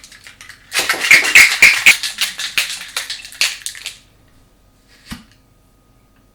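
Ice rattling hard in a cocktail shaker, a dense run of rapid strikes for about three seconds, then a single knock.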